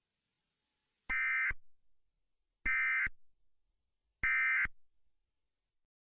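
Emergency Alert System end-of-message tones: three short SAME digital data bursts about a second and a half apart, the code that marks the end of an alert.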